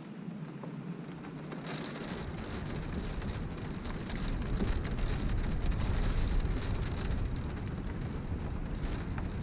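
Wind-driven rain beating on a window pane, a steady patter over a low wind rumble. It swells a couple of seconds in and is loudest near the middle.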